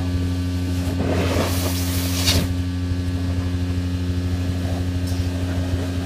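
Quiet Cube 200 industrial vacuum running with a steady low hum while its hose sucks up sand. About a second in, a louder rushing hiss builds for a second or so, then drops back.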